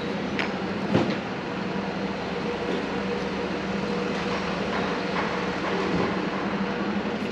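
Rail vehicle running with a steady rumble and hum, with a short knock about a second in.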